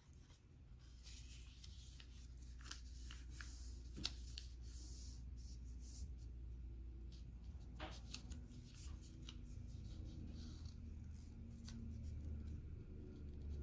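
Origami paper rustling and crinkling as it is folded and creased flat by hand, with a few sharp paper clicks, the loudest about four seconds in. A low steady hum sits underneath.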